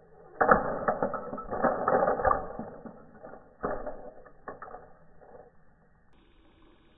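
Plastic LEGO bricks clattering as a LEGO car crashes into a heap of other LEGO vehicles. A burst of knocks and rattling starts about half a second in and lasts about two seconds, then one more knock, then a few scattered clicks as pieces settle.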